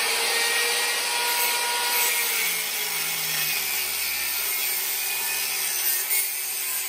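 Angle grinder with a cut-off wheel cutting through steel angle iron: a steady motor whine under a harsh hissing grind of wheel on metal.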